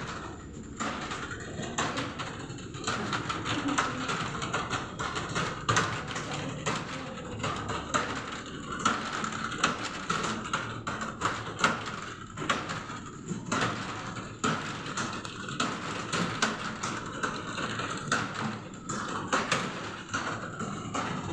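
Computer keyboard being typed on quickly, an irregular run of key clicks with now and then a louder key strike.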